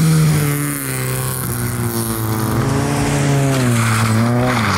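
Rally car engine running hard, its pitch falling over the first second, wavering, then dipping again near the end as the revs change, with a scrub of tyres in the last second.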